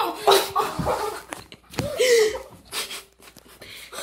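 A boy's wordless yelling and shrieking: several short, loud cries, the loudest about two seconds in, with quieter vocal sounds after.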